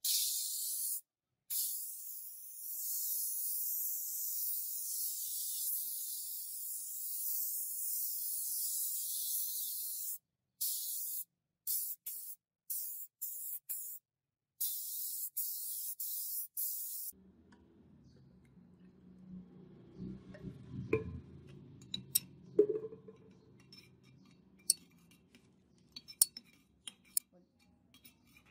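Paint spray gun hissing as it sprays red paint onto the scooter body, first in a long pass and then in a run of short trigger bursts, stopping about seventeen seconds in. After it, sharp metallic clinks of a metal rod against an aluminium pot as liquid paint or thinner is stirred.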